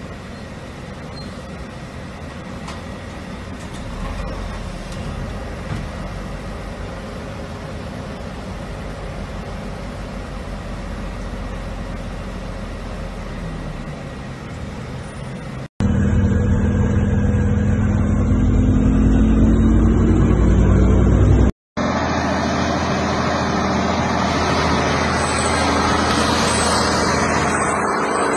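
A truck's engine running steadily, heard from inside the cab, growing somewhat louder a few seconds in. It cuts off abruptly into a louder engine-like hum, then into loud noise.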